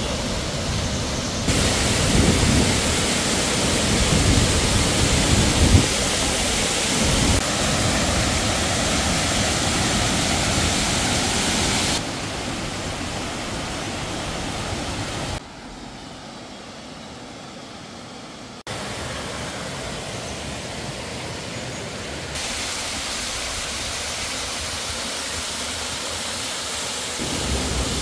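Waterfalls on a rocky mountain stream: a steady rush of falling and splashing water. Its loudness jumps up or down abruptly several times, with a softer stretch a little past the middle.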